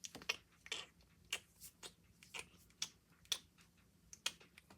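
Faint, irregular clicks and taps of small plastic doll toys and play-food pieces being handled, about two or three a second.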